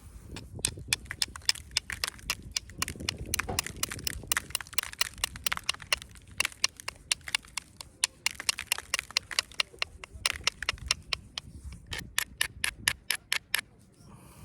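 Flint knapping: a knapping tool working the edge of a stone, giving a rapid, irregular series of sharp clicks, several a second, with a quick cluster near the end.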